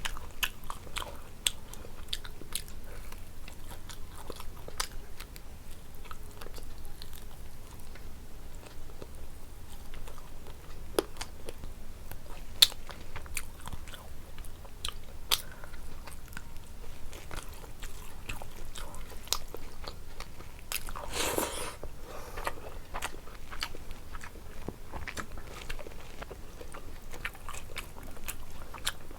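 A person chewing and biting food close to the microphone, with many short sharp mouth clicks. One longer, louder noisy stretch comes about 21 seconds in.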